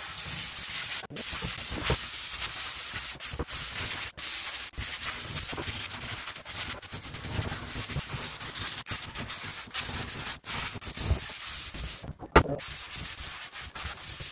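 Sanding surface rust off a metal TRD Pro truck exhaust toward bare metal: a steady scratchy hiss with brief breaks between strokes. A single sharp knock about twelve seconds in.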